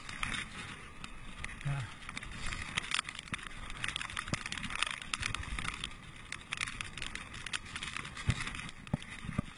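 Mountain bike rolling fast down a wet dirt-and-gravel trail: a steady rush of tyre noise on the surface, full of small clicks and knocks from the bike rattling over the ground.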